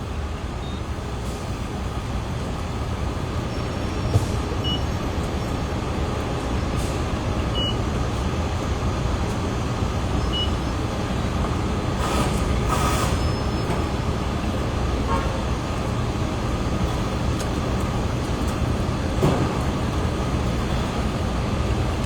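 Steady road and engine noise inside a moving car's cabin, growing slightly louder along the way.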